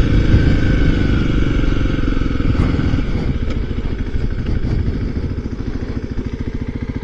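Kawasaki KLX300's single-cylinder four-stroke engine running, heard from inside the rider's helmet. About three seconds in the engine eases off, and its firing pulses become distinct as it slows.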